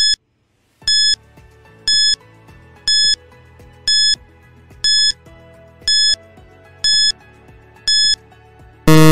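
Electronic countdown timer beeping once a second, nine short high beeps over soft background music, then a longer, louder, lower buzzer tone near the end as the count reaches zero.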